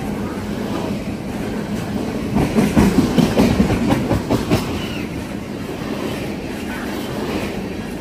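Freight train tank cars rolling past on steel wheels, a steady rumble with a louder run of rapid wheel clacks from about two and a half to four and a half seconds in.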